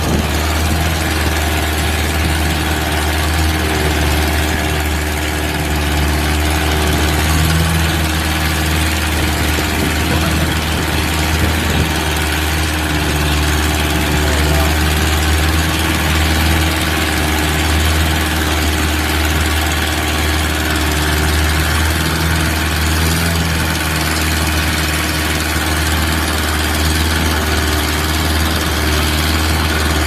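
Longtail boat's engine running steadily under way, a loud, even low drone, with the rush of water and wind from the wake over it.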